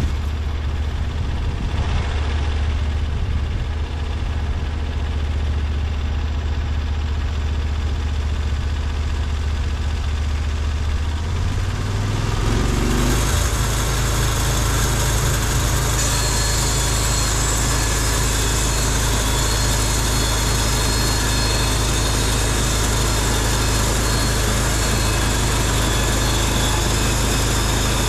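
Portable bandsaw sawmill's engine running steadily at a low idle. About halfway through it changes to a louder, faster running sound with more hiss, which holds to the end.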